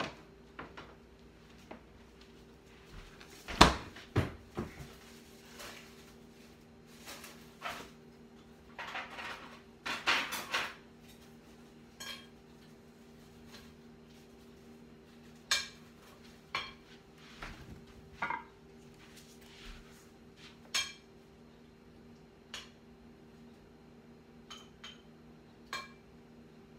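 Scattered clinks and knocks of dishes and cutlery as food is spooned onto a plate, the loudest knock about three and a half seconds in, over a steady low hum.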